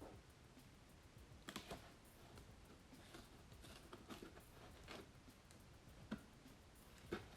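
Quiet, scattered soft clicks and taps, several of them spread over a few seconds, from hands handling a new laptop during unboxing.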